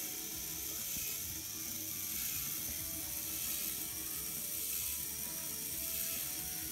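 Plastic LEGO Technic gear train driven by a small electric motor, running steadily with a continuous whirring rattle of meshing gears.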